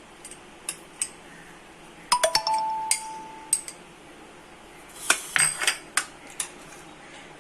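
Spoon and dishes clinking as ingredients are handled: scattered light taps, one sharp clink about two seconds in that rings on for about a second, and a cluster of clinks and scraping around five to six seconds in.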